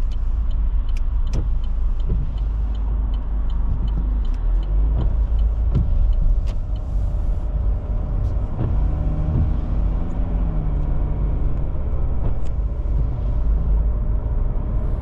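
Car being driven on a wet road, heard from inside: steady low rumble of engine and tyres. A run of regular light ticks comes through in the first few seconds, and an engine note rises around the middle.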